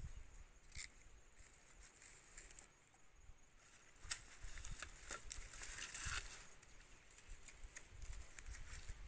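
Dry sticks being laid and shifted by hand over a fire pit, with scattered light clacks of wood and rustling of dry grass.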